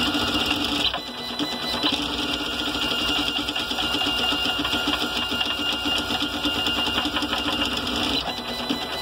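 GARCAD 3D printer printing at 400 mm/s with 16 m/s² acceleration: its motors and print head make a steady, fast-rattling machine buzz with shifting tones as the head darts back and forth. The tone changes about a second in and again near the end.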